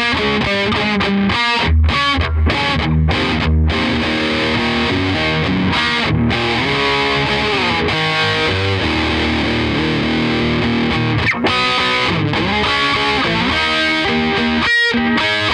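Distorted electric guitar played through a Yamaha DG60-112 combo amplifier, miked at its speaker, as a play test of the freshly serviced amp: quick runs of single notes with a few brief breaks.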